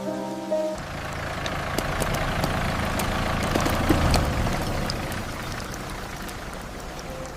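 A motor vehicle's engine running in the rain, growing louder to about four seconds in and then slowly fading, with raindrops pattering throughout.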